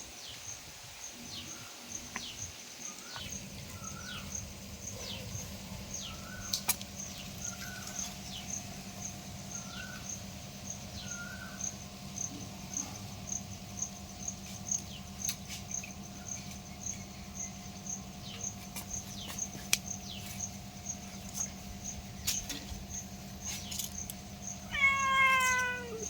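A cat gives one loud meow that falls in pitch near the end, over a steady low hum and a faint, fast, high-pitched pulsing.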